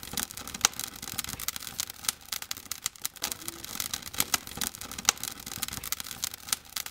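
Wood fire crackling in a fireplace: irregular sharp pops and snaps, several a second.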